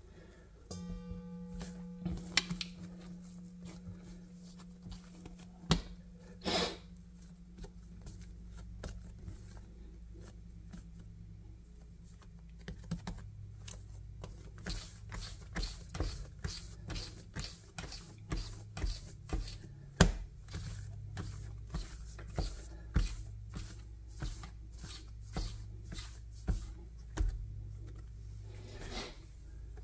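Hands patting and pressing balls of bread dough on a marble countertop, making soft taps and clicks, about one or two a second in the second half, over a steady low hum.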